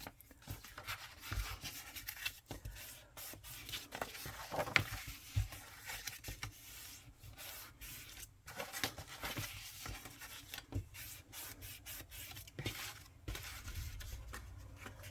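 Paper envelope being folded along its score lines and creased down by hand: irregular rubbing and scraping of paper with scattered small clicks.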